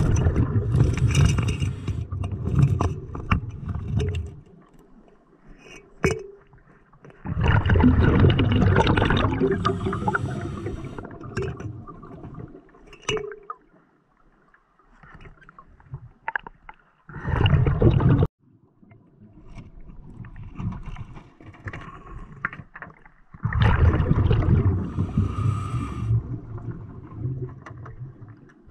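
Scuba diver's exhaled bubbles heard underwater: four long bursts of bubbling from the regulator, several seconds apart, with quieter gaps between breaths.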